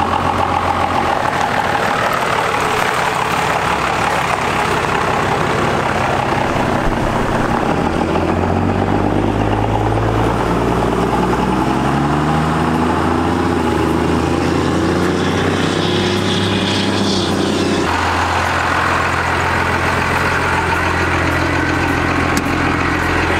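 Second-generation Dodge Ram 2500 diesel pickup running, then pulling away with its engine note rising in steps about 8 to 13 seconds in. About 18 seconds in the sound changes suddenly to another engine running steadily.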